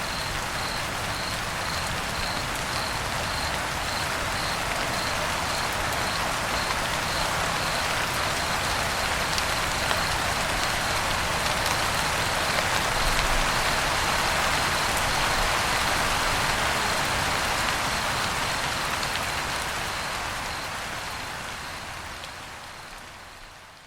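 Steady rain falling on a roof, a dense patter that swells a little in the middle and then fades out over the last few seconds.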